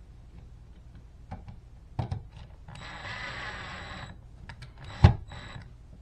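Cordless drill running for about a second and a half at the edge of an electrical outlet box, with a thin high whine, amid scattered clicks and knocks of tools against the box. A sharp knock about five seconds in, then a short second run of the drill.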